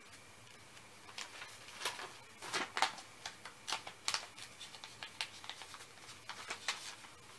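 Paper and marker handling: sheets being picked up and shuffled, and a marker scratching on them. This makes an irregular run of short scratchy rustles, loudest about two and a half to three seconds in.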